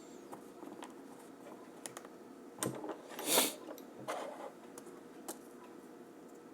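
Small plastic clicks and taps of smartphone parts being handled and fitted back together during a loudspeaker replacement, with a brief burst of scraping a little past halfway, the loudest a short rushing scrape.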